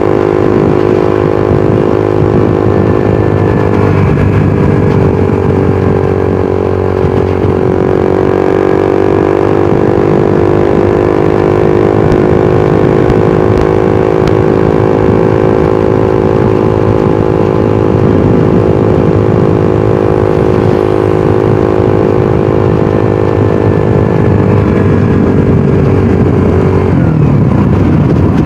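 Suzuki GSX-R150's single-cylinder engine and exhaust running steadily at cruising speed while riding, over road and wind noise. The engine note dips briefly about four seconds in and drops away near the end.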